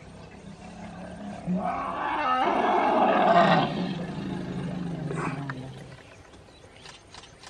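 African elephant roaring as it charges to chase off a young bull: one long, loud call that swells from about a second in, peaks around three seconds and dies away by about six seconds.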